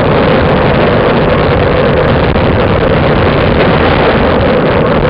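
Loud, steady wind rush over the microphone of a camera riding on a moving road bike.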